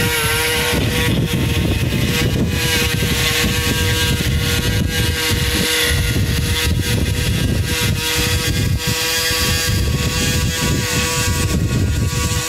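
Electric motors of an RC model tractor and its mower: a steady high whine from the spinning mower, joined about a second in by a rough rumble of the drive motor and gears as the tractor drives over the grass.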